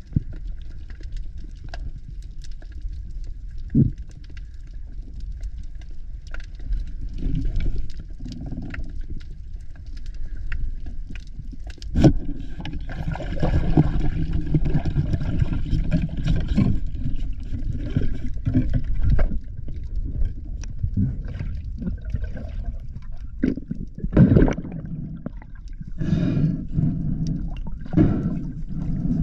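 Underwater sound from a camera carried by a freediving spearfisher: a steady low rumble of water moving around the housing, with scattered clicks and knocks, a sharp one about 12 seconds in and a louder burst around 24 seconds.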